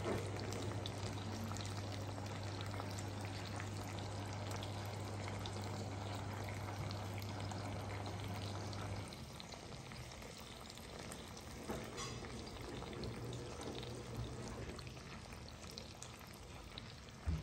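Pork loin chops sizzling in oil in a frying pan, a steady frying hiss with fine crackles. About nine seconds in, a low steady hum stops and the sizzle becomes somewhat quieter.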